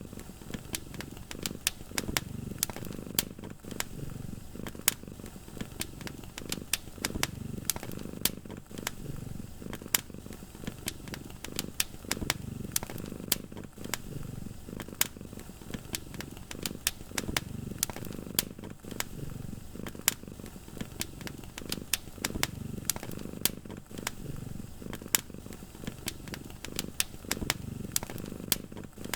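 A cat purring steadily, the purr swelling and fading with each breath about every two seconds, over a crackling wood fire with frequent sharp pops.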